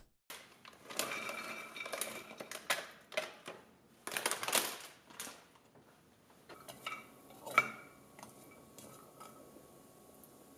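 Walnut pieces clattering and rattling in an enamelled cast-iron pot as they are dry-roasted, in dense bursts for the first half. A single sharp knock comes about three-quarters of the way through, followed by a few light ticks.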